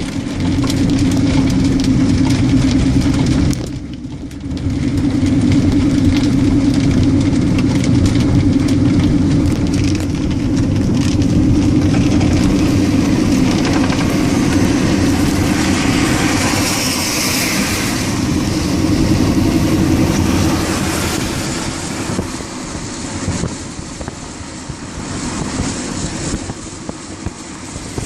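Steady vehicle noise: a low engine and road drone that dips briefly about four seconds in, with a rush of hiss swelling around two-thirds of the way through.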